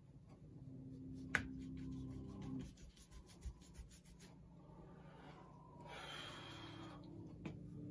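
Paintbrush scrubbing acrylic paint onto heavy watercolour paper. A rapid run of short strokes, several a second, follows a sharp tap about a second in, and a longer scratchy scrub comes near the end.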